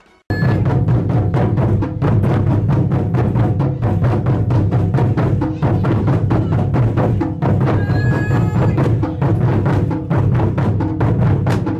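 Taiko ensemble: several players beating large barrel-shaped taiko drums with wooden sticks in a fast, dense rhythm. It starts abruptly a moment in.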